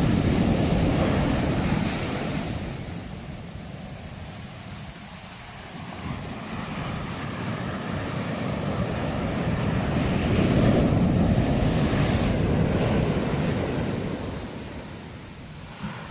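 Ocean waves surging and washing in: one wave is loud at the start and recedes, then a second swell builds to a peak about two-thirds of the way through and fades near the end.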